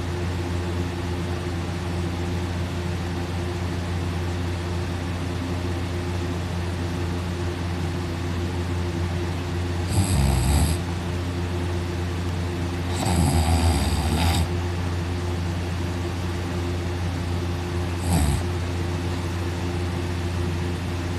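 A man sleeping on his back with his mouth open, snoring heavily. Three loud snores stand out, about ten, thirteen and eighteen seconds in, the middle one the longest, over a steady low hum.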